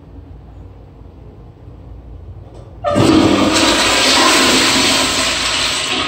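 Toilet flushing: a low room hum, then about three seconds in a sudden loud rush of water that keeps going and starts to fade near the end.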